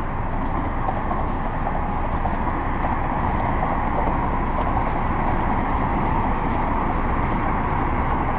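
Steady rushing noise of wind and water around a small open fishing boat, with a few faint ticks.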